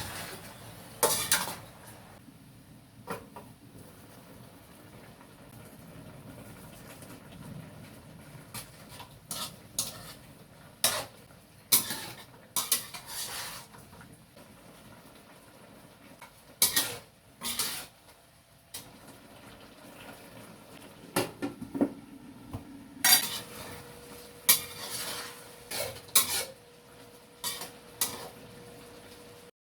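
Kitchen utensils clinking and scraping against cookware while the adobo is handled, in irregular sharp strikes with quieter stretches between. A faint steady hum comes in about three-quarters of the way through.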